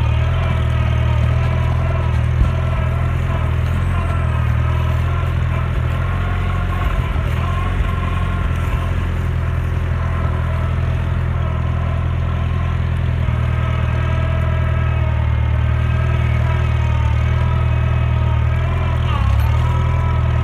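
Old farm tractor's engine running steadily, a constant low drone, with a brief dip and rise in pitch near the end.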